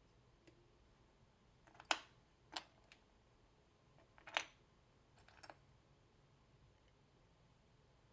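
Four sharp clicks and taps of small plastic model-kit parts being handled and fitted together, the loudest about two seconds in and just past four seconds.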